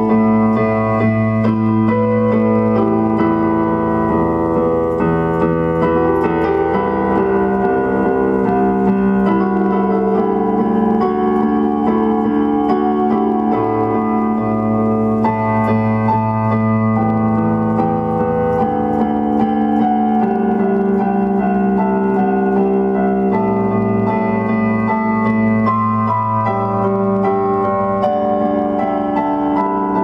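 Background music: a keyboard playing slow, held chords that change every couple of seconds.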